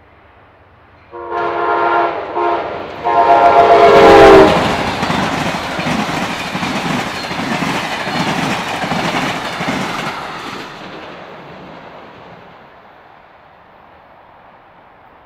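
Amtrak GE P42 diesel locomotive sounding its air horn as it approaches at speed, a long blast, a short one and a longer one, then rushing past with the passenger cars' wheels clattering rhythmically over the rails. The clatter fades steadily as the train runs away.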